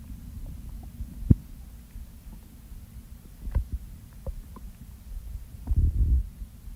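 Human stomach and gut sounds picked up close against the belly: a low, continuous rumble with a few short pops and gurgles, and a longer, louder gurgle near the end.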